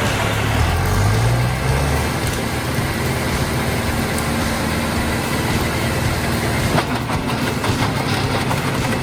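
Engine of an industrial wood chipper running, rising in pitch about half a second in and then holding a steady drone, with a cluster of sharp knocks about seven seconds in.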